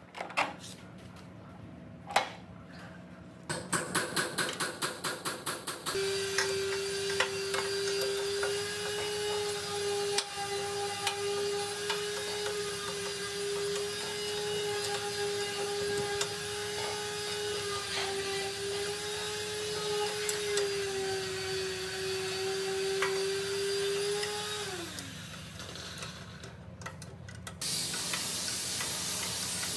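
A run of quick knocks, about four a second, then an electric motor runs with a steady whine for about twenty seconds and is switched off, its pitch sliding down as it spins down. An even hiss starts near the end.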